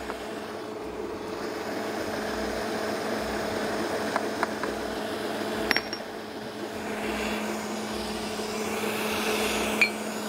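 Electric stand mixer running steadily, beating sugar, eggs, ghee and vanilla into a creamy cake batter, with a few light clicks.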